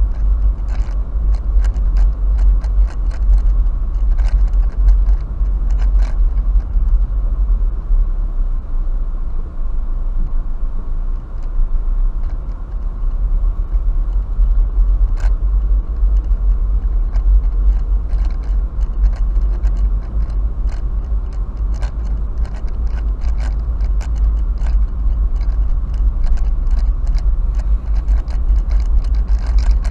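Car driving slowly, heard from inside the cabin: a steady low road rumble with frequent irregular clicks and rattles.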